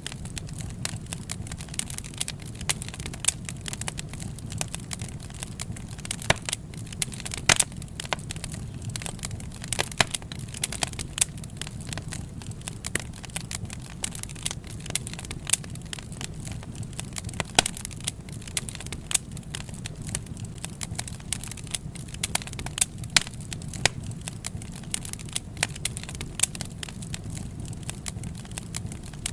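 Wood fire crackling: irregular sharp pops, several a second, over a steady low rumble.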